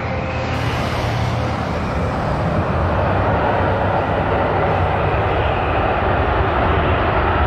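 Jet aircraft engine noise: a steady rushing sound over a low rumble, growing a little louder.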